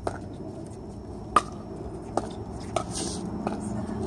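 Pickleball paddles hitting the hard plastic ball in a rally: sharp pops about a second apart, the loudest about a second and a half in.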